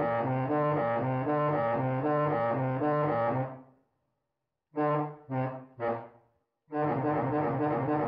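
Low-pitched bus horn sounding: it warbles between two low notes several times a second for about three and a half seconds, gives three short blasts in the middle, then starts a long steady blast near the end.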